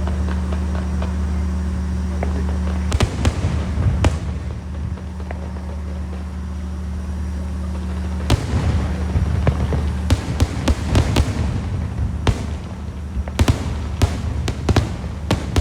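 Fireworks display: sharp bangs of bursting shells, a few scattered at first, then a quick run of bangs about ten seconds in and another cluster near the end, over a steady low hum.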